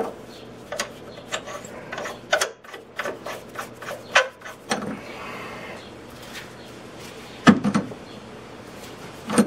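Scattered metallic clinks and knocks of a nut, subframe collar and tools being handled at a car's subframe bolt, with a louder cluster of knocks near the end.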